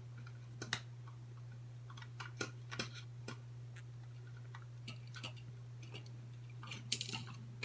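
Scattered light clicks and taps of cheap plastic headphone parts being handled as the circuit board is taken out, with a small cluster of clicks near the end, over a steady low hum.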